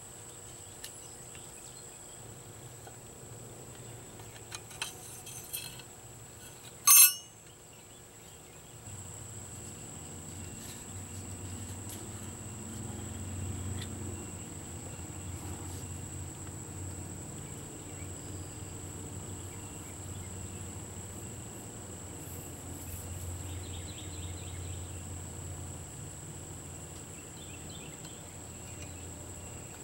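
Insects calling in a steady high-pitched drone. A single sharp knock comes about seven seconds in, and a low rumble sets in shortly after it.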